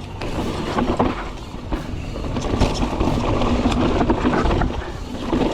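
Santa Cruz Megatower mountain bike descending a dirt trail: tyres rolling over dirt and the bike rattling over bumps, with many short clicks and knocks along the way.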